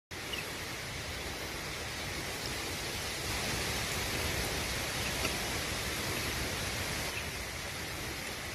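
Steady rushing hiss of running water, starting suddenly out of silence.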